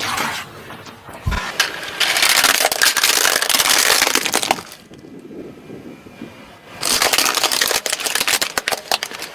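Crunchy objects being crushed: two long stretches of dense crackling and snapping, each about two to three seconds, the first starting about two seconds in and the second near seven seconds.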